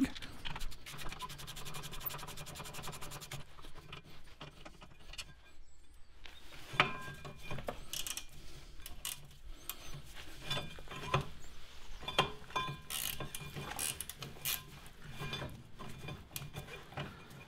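A ratchet spanner clicking rapidly for a couple of seconds as a brake caliper mounting bracket bolt is turned. It is followed by scattered metallic clinks and light knocks of the spanner and steel parts at the hub.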